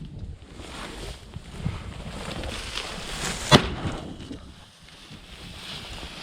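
Wind buffeting the microphone and rustling through cover, with one sharp crack about three and a half seconds in.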